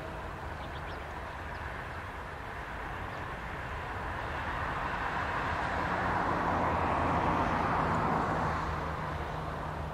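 Union Pacific freight train running out of sight: a continuous rushing rumble of wheels on rail over a steady low hum. It swells about four seconds in, is loudest around seven to eight seconds, then eases off.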